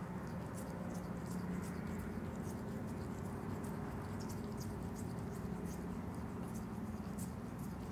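Opossum grooming itself: small, irregular clicking mouth sounds, a few a second, over a steady low hum.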